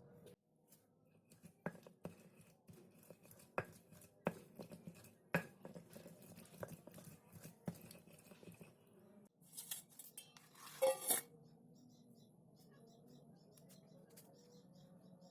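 Kitchen utensils and dishes clinking and knocking lightly, with a brief louder clatter about ten seconds in, then only a faint steady hum.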